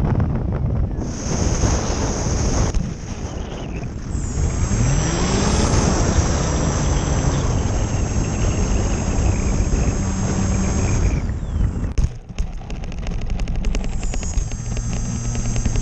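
Electric motor and propeller of a Hobbyzone AeroScout S RC plane, heard from a GoPro mounted on the plane, with wind rushing past the microphone. The motor's whine glides up and down as the throttle changes, and the sound drops out briefly about twelve seconds in.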